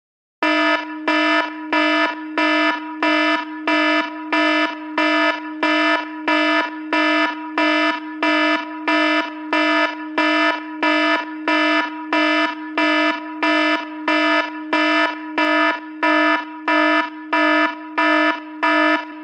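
An iPhone ringtone playing: a buzzy electronic alarm tone at one fixed pitch, pulsed evenly about one and a half times a second, each pulse starting loud and then dropping.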